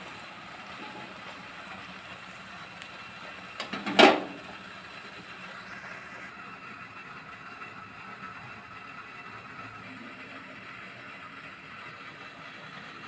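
Bread slices shallow-frying in oil in an aluminium kadhai: a steady sizzle, with one sharp knock about four seconds in.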